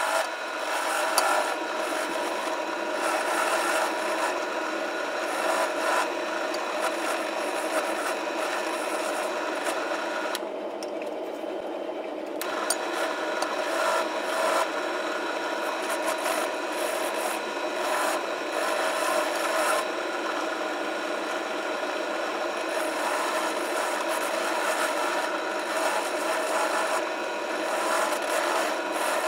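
Bench drill press running with an abrasive attachment in its chuck while a steel ball-peen hammer head is held against it: a steady rough scraping as rust is ground off the head. About a third of the way in the scraping drops out for a couple of seconds, leaving the machine's hum, then comes back.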